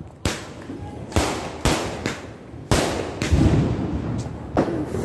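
Diwali firecrackers going off: about five loud, sharp bangs at irregular intervals, each ringing briefly off the surrounding buildings.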